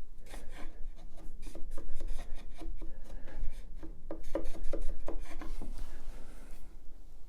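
Hand chisel paring pallet wood: a run of short, irregular scraping cuts as thin shavings are taken off to bring the joint down to the line, busiest past the middle.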